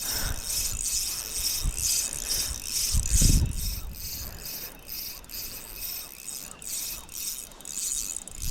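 Spinning reel being wound with a rhythmic ticking, reeling in a hooked squid. Strong gusts of wind buffet the microphone, the loudest about three seconds in.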